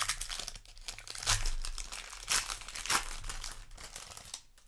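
Foil booster pack wrapper crinkling with irregular crackles as it is handled and torn open by hand.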